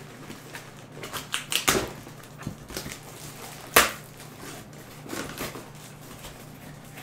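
A taped cardboard shipping box being cut with scissors and torn open by hand: a string of short, sharp cutting, tearing and rustling noises. The loudest snap comes just under four seconds in.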